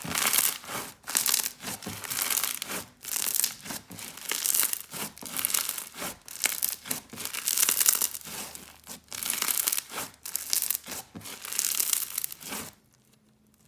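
Hands squishing and stretching a clear-based bingsu bead slime, giving crunchy crackling in pulses about once a second. It stops shortly before the end.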